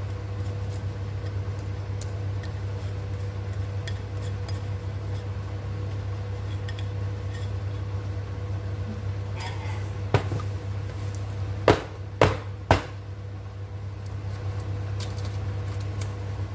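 Wire whisk scraping thick banana loaf batter out of a mixing bowl into a loaf pan, with light clicks of metal on the bowl, over a steady low hum. About two-thirds of the way through come three sharp knocks about half a second apart.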